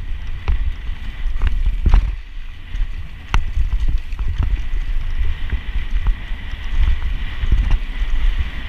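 Mountain bike ridden fast down a loose dirt trail: wind buffeting the microphone with a constant low rumble, and the tyres and bike rattling over the dirt with scattered sharp clicks and knocks.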